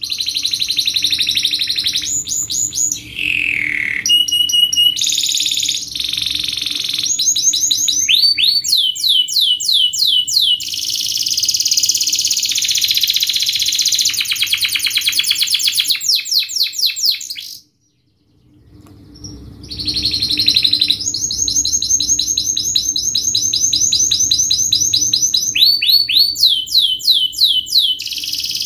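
Domestic canary singing a fast, dense song of rapid trills built from quick repeated descending notes. It breaks off for about a second past the middle, then starts again.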